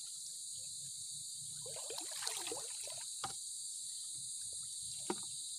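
Steady high-pitched insect chorus. A short spell of splashing and handling about two seconds in, and two sharp knocks, one a little past the middle and one near the end, as the crab-trap pole is worked in the water.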